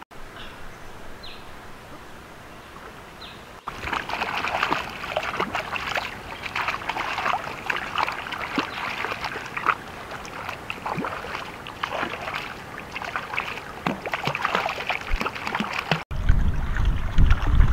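Hands splashing and scooping river water over a puppy being bathed, a busy, choppy splashing that starts about four seconds in after a quieter opening. Near the end the splashing gives way to a loud low rumble of wind on the microphone.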